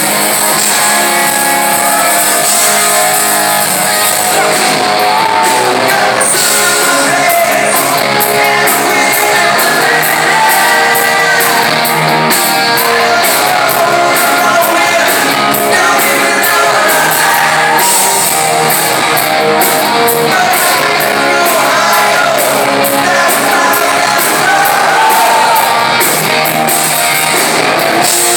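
Live rock band playing loud: electric guitars and a drum kit with a male lead vocal sung over them, heard from within the audience.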